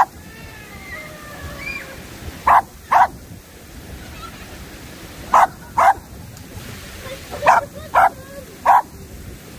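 A dog whining with a few thin rising whimpers in the first two seconds, then barking seven times, mostly in quick pairs about half a second apart.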